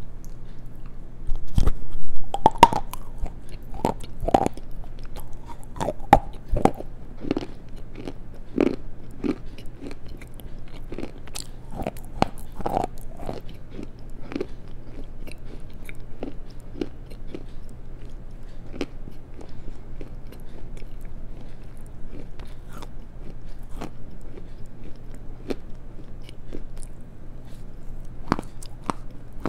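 Close-miked chewing of black slate and clay stones: sharp, crisp crunches come thick and loud for the first dozen seconds, then thin out into softer, sparser chewing.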